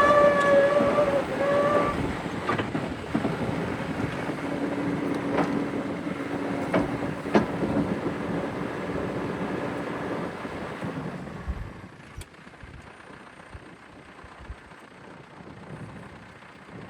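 CAT 420D IT backhoe loader's diesel engine running. A high, pitched warning alarm beeps in the first two seconds, typical of its reverse alarm as it backs up. The engine sound then dies away about 11 seconds in.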